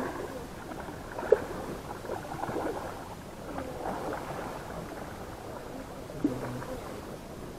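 River ambience heard from an inflatable boat: water movement and faint, indistinct distant voices, with two brief sharp knocks, one about a second in and one about six seconds in.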